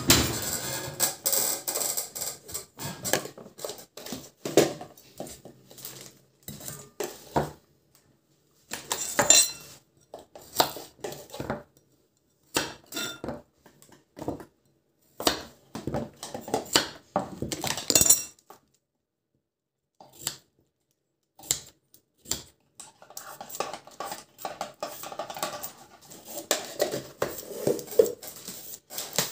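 Kitchen prep sounds: a knife cutting carrot on a wooden cutting board in a run of irregular knocks, with clinks of kitchen utensils. Near the end, the scratchy rasp of a vegetable peeler stripping a carrot.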